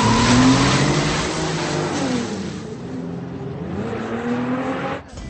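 Nissan Maxima doing a burnout: tyres screeching under wheelspin while the engine revs up. The screech fades after about two and a half seconds as the car pulls away, the engine revving on, falling and rising in pitch, until the sound cuts off suddenly near the end.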